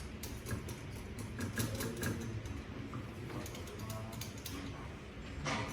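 Irregular small mechanical clicks and rattles over a low steady hum.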